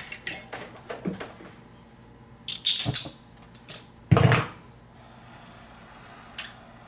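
Metal clinks and a short rasp as a Smith mini oxygen-propane torch is handled and lit. There is a single whoomp about four seconds in as the gas catches, followed by the flame's faint steady hiss.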